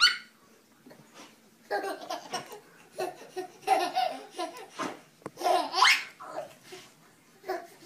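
A young baby laughing in several short bouts of belly laughs, starting about two seconds in, one rising to a high squeal about six seconds in.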